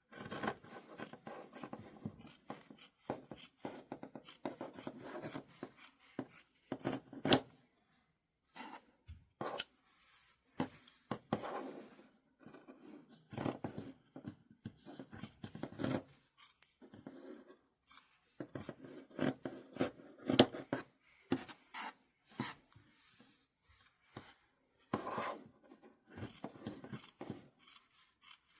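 Fabric scissors cutting quilt fabric in short runs of crisp snips, with quiet pauses between runs and the rustle of the cloth being handled.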